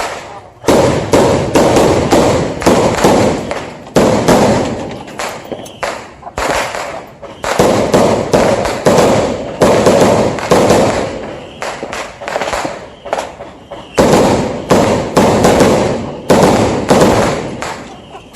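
Fireworks going off in a dense barrage: one loud bang after another, each trailing off, with a short lull now and then.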